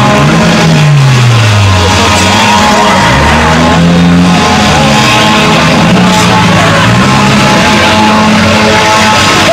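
Demolition derby car engines revving up and down over and over, mixed with rock music.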